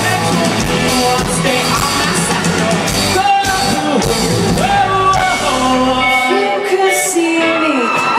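Live band playing with singing, heard loud from within the crowd on an iPod's microphone. About six seconds in the drums and bass drop out, leaving the voices and the higher parts.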